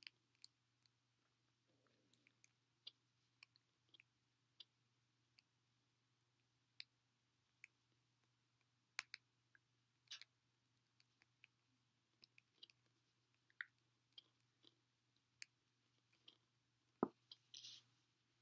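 Near silence with faint, scattered clicks and ticks of fingers handling a small piece of single-braided line, and one louder knock near the end followed by a short rustle.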